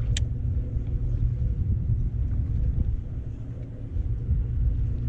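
Uneven low rumble of wind buffeting the microphone on open water, with a faint steady hum beneath it and a brief high squeak just after the start.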